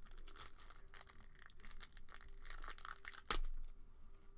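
Cellophane wrapper of a trading-card pack crinkling and tearing as it is opened by hand, with irregular crackles; a single loud thump on the table about three seconds in.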